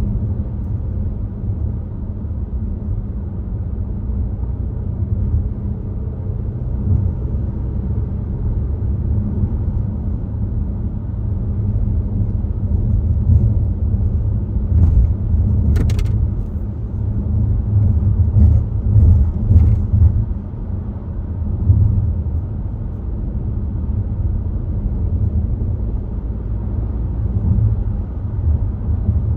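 Volvo XC60 driving on the road: a steady low rumble of tyres and engine that swells and eases, with a handful of sharp clicks about halfway through.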